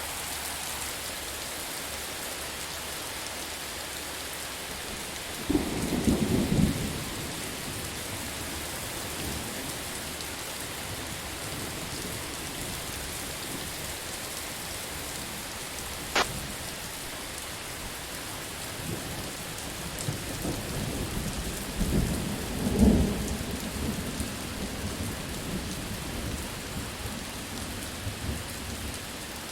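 Steady heavy rain hissing, with thunder: a low rumble about five seconds in, a sharp crack around the middle, and a longer rolling rumble later, loudest a little past two-thirds of the way.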